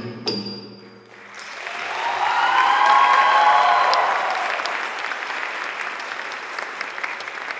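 Audience applause after the last percussion stroke of the dance music dies away. The applause swells to a peak about three seconds in, with cheering voices at its height, then carries on steadily.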